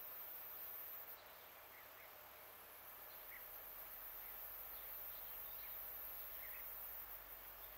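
Faint steady outdoor hiss with a few short, faint chirps scattered through it.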